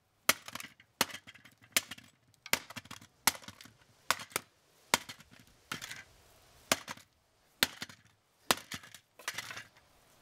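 A golf club repeatedly smashing the housing of a G-Force BJ-350 jigsaw: about a dozen sharp cracking hits, one every second or less.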